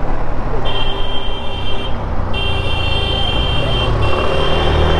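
Motorcycle riding sound: the engine running under wind rush on the microphone. About a second in, a steady high-pitched tone starts and sounds three times, each for one to two seconds.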